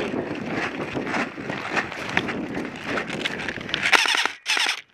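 Running footsteps crunching through dry grass and brush, with a steady rustle of vegetation. About four seconds in, branches scrape harshly close by; the noise then cuts off suddenly just before the end.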